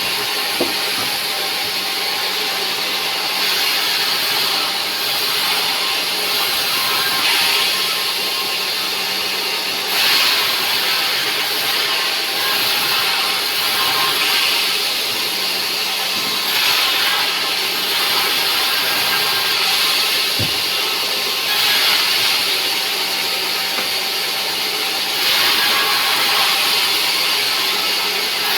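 Sawmill saw running and cutting rubberwood, a steady motor hum under a hissing cutting noise that swells and eases several times.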